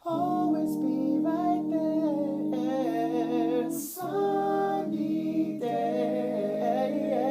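Layered a cappella voices singing wordless, held harmony chords with no instruments. The chord changes about four seconds in, just after a quick breath.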